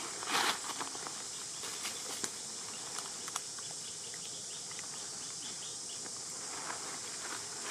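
Dry leaf litter rustling and crackling as monkeys shift on it: one louder rustle about half a second in, then scattered small crackles. Under it runs a steady high insect drone.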